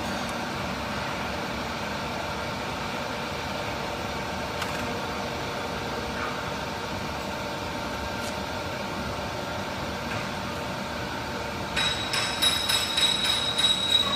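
CNC router's axis drives and electronics humming steadily while the rotary axis homes. Near the end comes a louder, rapid run of clicks with a high whine as the axis motor drives.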